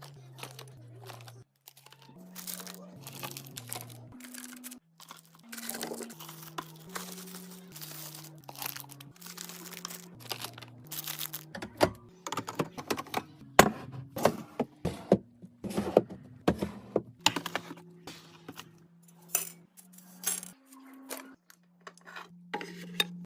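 Restocking sounds: many sharp clicks, clinks and knocks of items being handled and set down, with some rustling of packaging. The clicks come thickest in the second half. Soft background music with a slow, stepping bass line plays underneath.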